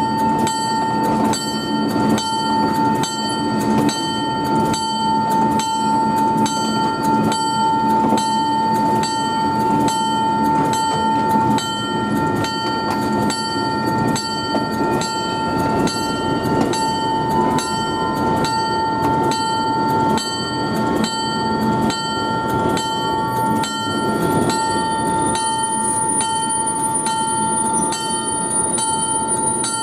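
A bell ringing steadily with even strikes, about two a second, over the running rumble of the train.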